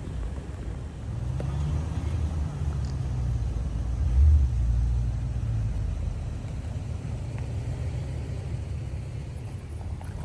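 A 2018 Toyota 4Runner's 4.0-litre V6 engine running at low speed under load on a rough trail. It pulls harder about a second in, with a brief louder surge around four seconds.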